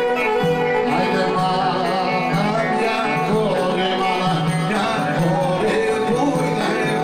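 Live Greek folk dance music from a band: a wavering melody line over a continuous accompaniment.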